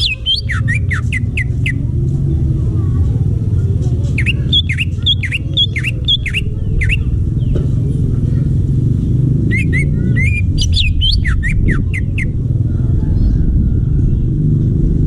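Cucak ijo (green leafbird) singing in three bursts of quick, sharply sweeping chirps, about a second, a few seconds and again a few seconds in, each lasting two or three seconds. A steady low rumble runs underneath throughout.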